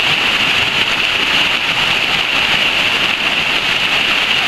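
Loud, steady rush of stream water cascading down a natural rock water slide, a continuous hiss with no break.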